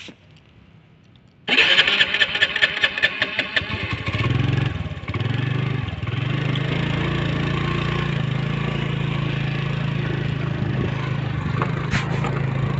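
Motorcycle engine starting about a second and a half in: rapid, rough firing for a couple of seconds as it catches, then settling into a steady idle.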